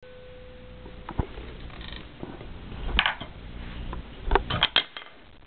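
Wooden drumstick being spun in the hand, clicking and knocking against the fingers: scattered sharp clicks, with a quick run of three or four close together near the end.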